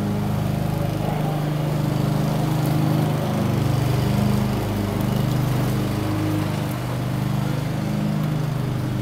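Dogs play-growling while they wrestle: a continuous low, rumbling growl that keeps shifting up and down in pitch.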